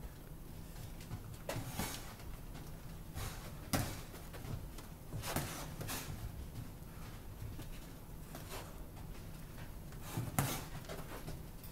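Boxing gloves landing during light sparring: irregular slaps and thuds a second or two apart, the loudest about four seconds in and again near the end.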